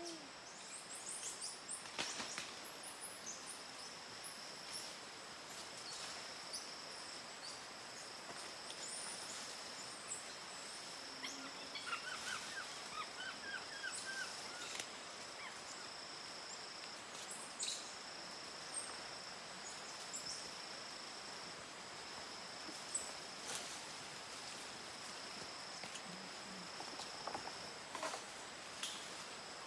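Amazon rainforest ambience: a steady high-pitched insect drone, with scattered short high chirps and peeps, a quick run of small chirps about twelve seconds in, and a few sharp snaps.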